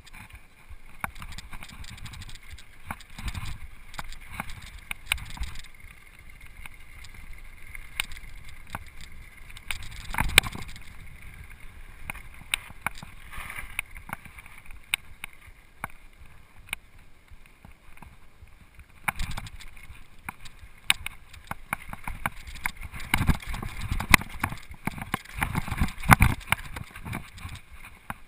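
Rocky Mountain Flatline downhill mountain bike rolling fast down a gravel trail: tyres crunching over gravel while the chain and frame clatter in quick irregular knocks, with heavier thumps about ten seconds in and several more in the last few seconds as it hits bumps.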